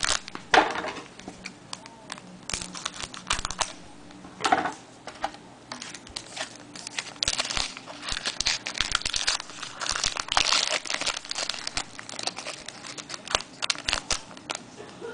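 A pack of trading cards being opened by hand: the wrapper crinkling and tearing, with a run of small crisp clicks and rustles as it is handled and the cards are pulled out.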